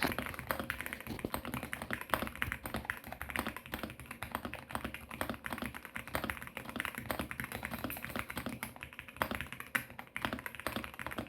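Fast, continuous typing on a custom-built GMK67 mechanical keyboard: a dense stream of keystroke clacks, many per second.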